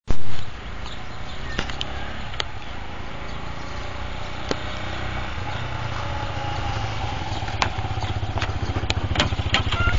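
A small 50 cc motorcycle engine running, its fast, even putter growing slightly louder as the bike approaches. There is a short loud knock at the very start and a few light clicks.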